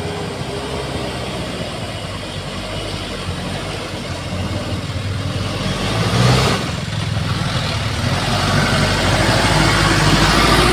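Hino Dutro 300 light truck's diesel engine running as the loaded truck drives up the dirt track and passes close by. It grows louder as it nears, with a brief louder surge about six seconds in.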